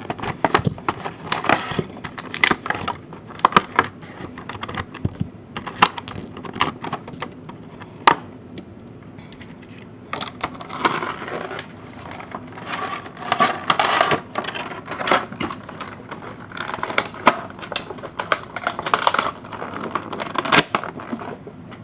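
Clear plastic blister packaging crinkling while small plastic and metal Beyblade parts are handled, with scattered sharp clicks and taps and several longer stretches of crinkling.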